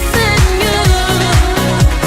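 Dance-pop track with no vocals: a steady, evenly spaced kick-drum beat under a synth melody.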